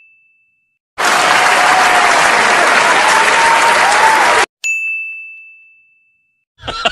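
Sound-effect clips: the fading tail of a clear bell-like ding, then about three and a half seconds of applause-like crowd noise that cuts off abruptly, then a second identical ding that rings out and fades over about a second and a half.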